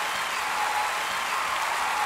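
Steady, even rush of noise like applause, with faint sliding tones above it.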